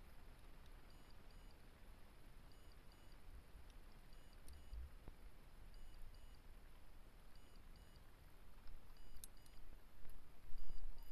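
Faint electronic beeps in a repeating pattern, about every second and a half, over a low rumble, picked up by a camera inside an amateur rocket falling back after apogee with its motors burnt out. A sharp click comes about nine seconds in, with louder knocks and bumps near the end.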